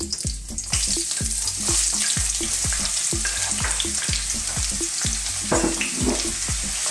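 Sliced ginger and onion sizzling in hot sunflower oil in a non-stick wok. The sizzle comes in loud about a second in as they go into the pan, then holds steady. A steady low beat of background music runs underneath.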